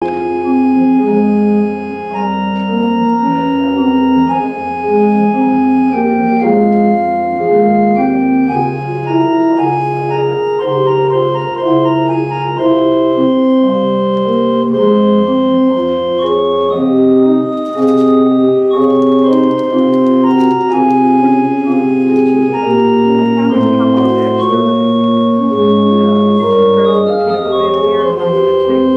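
Organ music of slow, sustained chords over held bass notes, the chords changing about once a second, starting abruptly.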